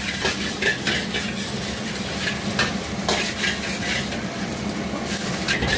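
Food sizzling in a hot pan while a metal spatula stirs and tosses it, with frequent sharp clanks of metal on metal at an irregular pace.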